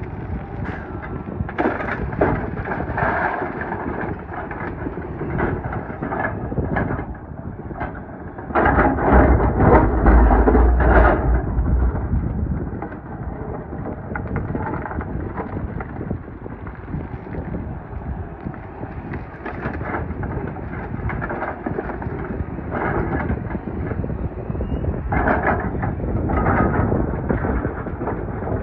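Doosan DX420LCA excavator working gravel, heard from the cab: the engine runs under load while gravel scrapes and rattles and steel clanks, in irregular knocks. About nine seconds in there is a louder stretch of about three seconds with a heavy, deep rumble.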